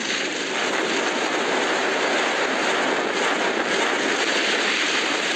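A steady, loud rushing noise with no clear pitch, the whoosh of an intro sound effect over an animated logo sequence.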